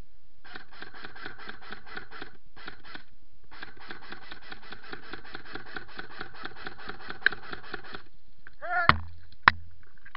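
Airsoft gun firing long full-auto bursts of rapid, evenly spaced shots, stopping and restarting twice. Near the end, a short cry and two sharp cracks.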